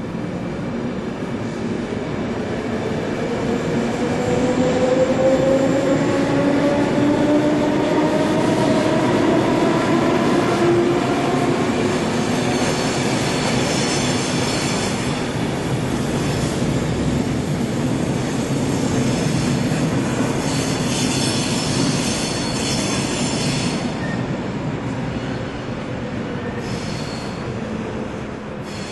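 ÖBB class 4020 electric multiple unit pulling away and accelerating, its motor whine rising steadily in pitch over rolling wheel noise. This is followed by high-pitched wheel squeal through the middle of the stretch.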